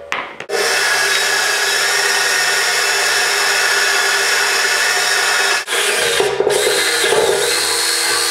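Cordless drill boring through the wall of steel tubing, running steadily under load. It stops briefly about five and a half seconds in and again a moment later, then runs on.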